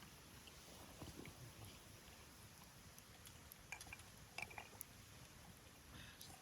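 A person quietly chewing a mouthful of food, with a few faint soft clicks about four seconds in.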